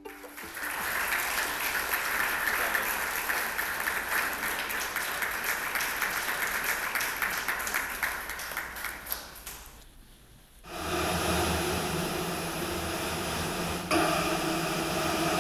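Audience applauding, a dense crackle of clapping that lasts about ten seconds and fades out. After a short lull, a steady low droning hum with several held tones comes in.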